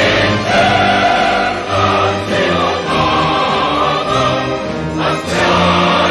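A choir singing with orchestral accompaniment, in held chords that change about every second.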